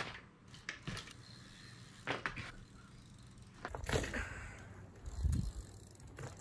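BMX bike ridden on an asphalt driveway: tyres rolling on the pavement with a few scattered clicks and knocks, and a louder rush of tyre noise about four seconds in as the bike passes close.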